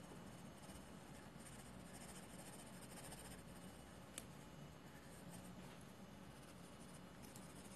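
Faint pencil scratching on drawing paper in uneven strokes, with one small sharp click about four seconds in.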